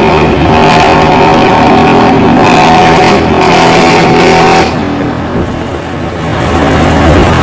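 Intercity bus engine with a modified growling 'ngorok' exhaust, running hard under load. About four and a half seconds in the sound drops away abruptly, then swells back near the end.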